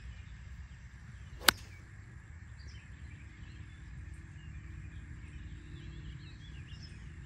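Golf club striking a ball on a full shot: one sharp crack about a second and a half in. Faint bird chirps in the background.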